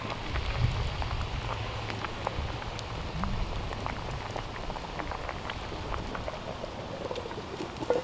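Pot of bean soup boiling over a campfire: a steady hiss of bubbling, dotted with many small irregular pops.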